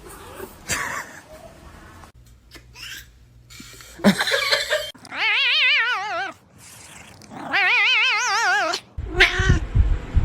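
Cat yowling: two long, wavering calls about five and seven and a half seconds in, with shorter cries before and after.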